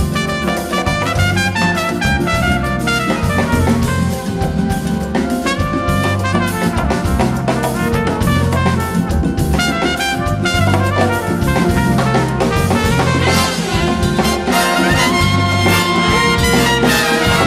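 Big band playing an instrumental calypso passage: a trumpet soloist over drum kit and bass, with the full trumpet and trombone sections joining in and the sound filling out near the end.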